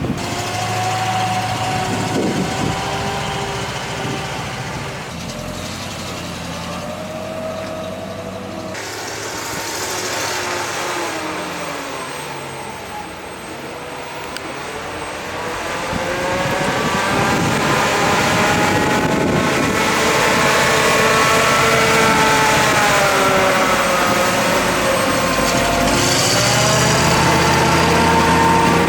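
A vehicle engine running, its pitch rising and falling as it revs up and down, with abrupt changes in the sound about a third of the way in and near the end.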